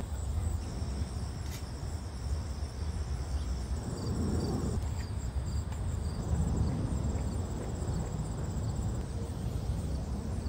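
Insects chirping in high-pitched, pulsing trills over a steady low rumble of background noise.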